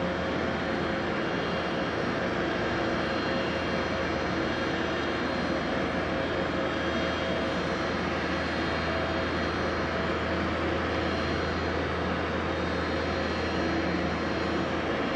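Car ferry Naoshima's engines and machinery droning steadily: a low hum with several steady tones under a broad rush, unchanging throughout.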